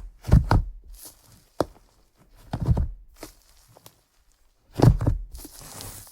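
Slime being squished and pressed by hand, in three strong squishes about two seconds apart, each with small clicks and pops.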